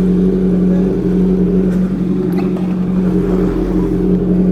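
Superbike engine idling steadily while it warms up.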